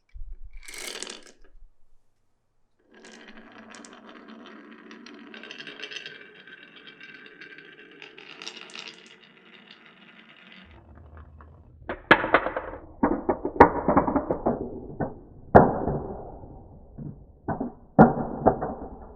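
Glass marbles running down a wooden marble run. After a short rattle near the start, marbles roll steadily along the track for about eight seconds. Then, from about eleven seconds in, comes louder clattering with several sharp knocks as marbles drop and strike the wooden pieces.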